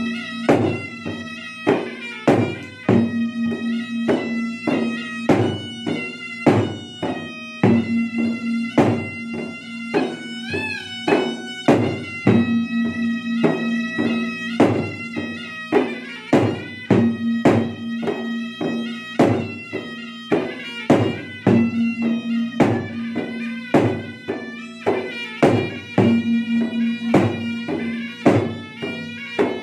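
Two long double-headed gendang drums struck by hand in a fast, dense rhythm, with a small shawm with a flared bell playing a nearly unbroken melody over them that wavers about ten seconds in.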